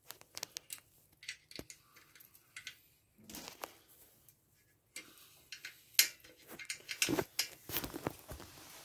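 Light metallic clicks and ticks of an Allen key working the clamp bolts of a bicycle kickstand on the chain stay. Sparse at first, they come thicker and louder from about halfway through.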